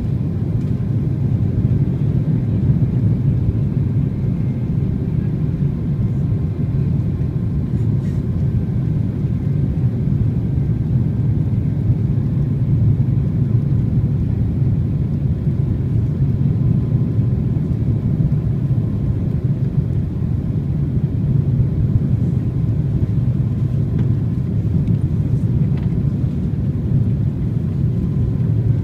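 Airbus A330-300 cabin noise on approach: the engines and airflow make a steady low rumble heard from inside the passenger cabin, with a faint thin whine above it.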